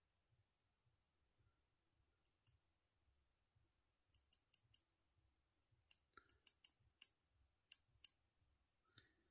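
Faint sharp clicks, about fourteen in small clusters of two to six, over near silence.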